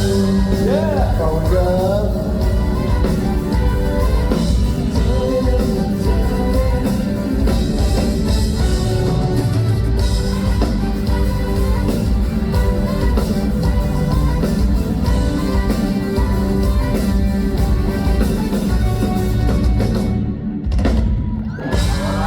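A live band playing a pop-rock song with a singer's voice over it, amplified in a large hall; the music drops out briefly near the end.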